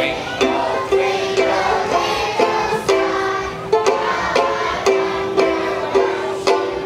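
Banjo ukulele strummed on a steady beat, about two strums a second, playing a song.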